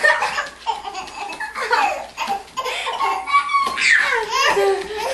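A baby laughing in repeated short, high-pitched bursts, with a held squeal about three seconds in.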